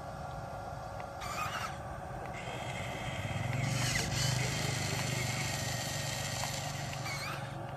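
Small electric motor of an RC toy excavator running with a steady hum that grows louder about three seconds in and drops back near the end, with a few brief high squeals.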